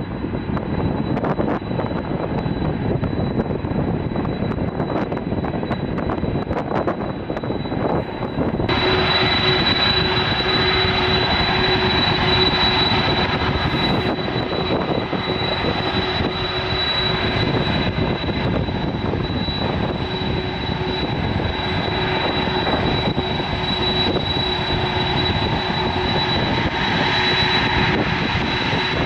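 Aircraft engines running, a steady rumble and rush. About nine seconds in, the sound cuts to a louder stretch with a steady high whine over the engine noise.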